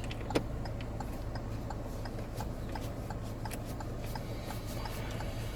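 Steady, even ticking, about two and a half ticks a second, over a low hum, with one louder click just under half a second in.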